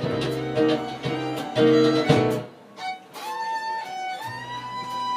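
Live acoustic band music: strummed guitar chords that stop abruptly about two and a half seconds in, followed by long held high notes.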